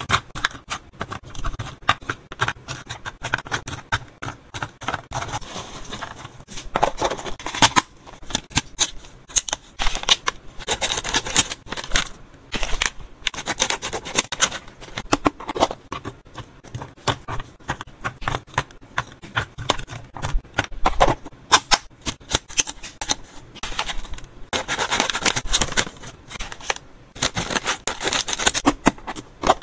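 Close-miked handling of pet-treat packaging: scissors cutting the tops off stiff foil-lined snack pouches and the pouches crinkling, with small tongs clicking freeze-dried treat cubes into a plastic box. The sound is a dense run of sharp clicks, snips and crinkles.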